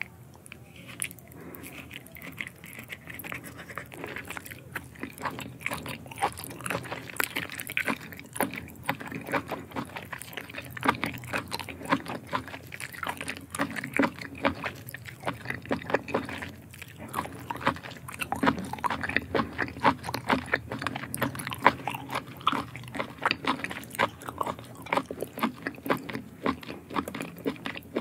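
A person eating raw octopus tentacles: wet chewing, biting and mouth smacks, heard as a dense, irregular run of sharp sticky clicks.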